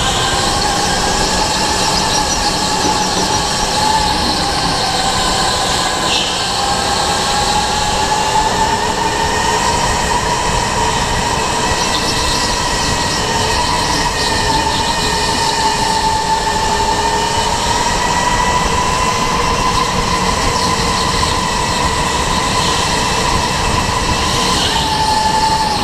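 Electric go-kart motor whining under way. Its pitch rises and falls as the kart speeds up and slows through the corners, over a steady rush of track noise.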